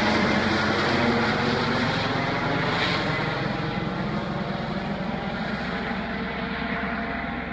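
Helicopter passing overhead and moving away, its rotor and engine noise fading steadily, the higher hiss dying off first.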